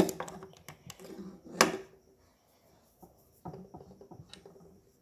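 Plastic Lego bricks clicking and clacking as they are pressed together and handled on a wooden tabletop, with a sharper knock about one and a half seconds in and a run of small clicks near the end.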